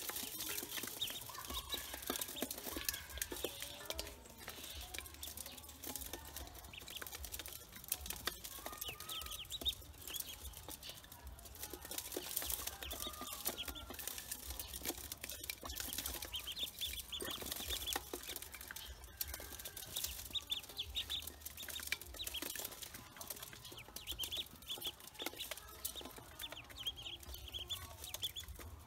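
A brood of ducklings peeping continuously, many short high cheeps overlapping, with sharp little clicks and taps of bills pecking at grain in a metal bowl.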